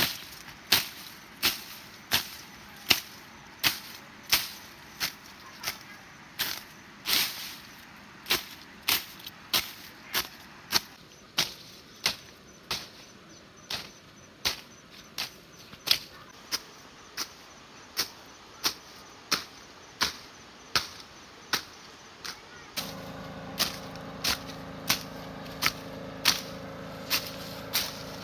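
Repeated sharp knocks, about one and a half a second, in an even rhythm. A steady low hum joins near the end.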